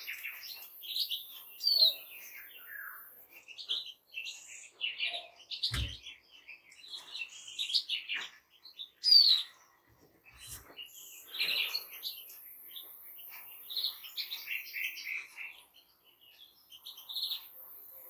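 Mixed finch chorus of European goldfinches, greenfinches and siskins: many overlapping twittering phrases and short chirps. A brief low thump comes about six seconds in.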